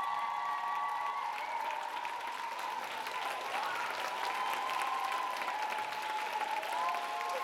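Large audience applauding, with long held cheers and screams riding over the clapping.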